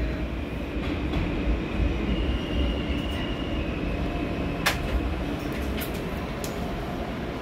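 R160 New York subway car running and slowing into a station, heard from inside the car: a steady rumble of wheels on rail with a high whine that steps down slightly in pitch, and a few sharp clicks near the middle.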